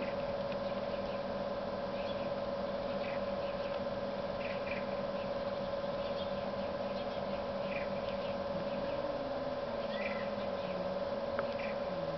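Domestic cat in a standoff, making a low, wavering growl-moan that starts about two-thirds of the way in and rises and falls in pitch. Before it there is a lull between yowls, with faint short chirps over a steady hum.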